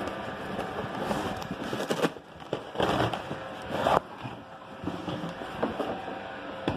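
Cardboard boxes being handled and opened: rustling and scraping of cardboard and packing paper, with a few sharp knocks about two, three and four seconds in.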